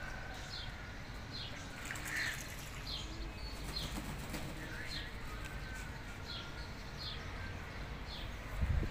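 Pigeons beating their wings while bathing in a shallow basin of water. A short, high, falling chirp repeats about every three-quarters of a second throughout.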